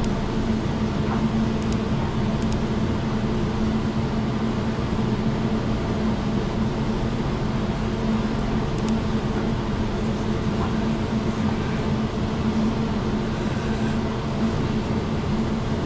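Steady mechanical hum: an even hiss with a low steady tone underneath, and a few faint ticks.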